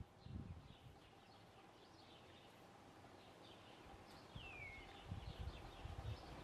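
Faint birdsong: many short, quick chirps, with one longer whistle sliding downward about four seconds in. Low rumbling bumps on the microphone come just after the start and again in the last second or so.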